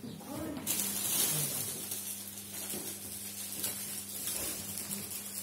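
Audience applause: many hands clapping, starting suddenly under a second in and carrying on steadily.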